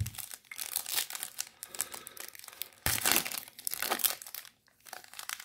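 A foil trading-card pack wrapper being torn open and crinkled in the hands: a dense, crackling rustle, loudest about three seconds in.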